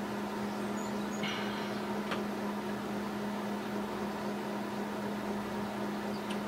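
A steady low hum at one pitch, with a short faint rustle about a second in and a small click about two seconds in.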